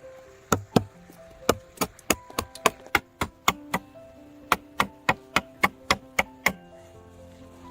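Quick series of sharp chopping blows into wood, about three a second, which stop about six and a half seconds in. Soft background music plays under them.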